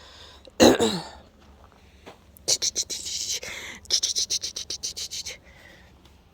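A woman with a congested head cold sneezing once, sharply, a little over half a second in, with a falling voiced tail. Two runs of quick, breathy, hissing pulses follow, each lasting over a second.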